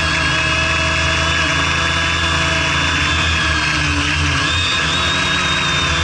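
Quadcopter's electric motors and propellers whining steadily, heard from the camera on board, with the pitch dipping and rising again about four seconds in.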